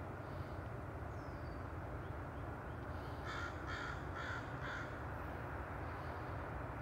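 A bird calling four times in quick succession, about two calls a second, over a steady low background rumble.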